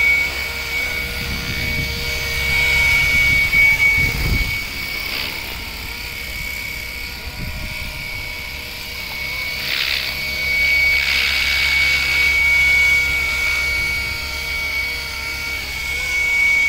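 FW450 450-size electric RC helicopter hovering hands-off on its H1 GPS autopilot: a steady high-pitched motor whine over the whir of the rotor blades.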